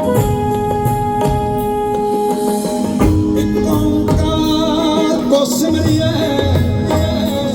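Live band music played loud through a concert sound system, with held keyboard chords and percussion, and a wavering melody line coming in about four seconds in.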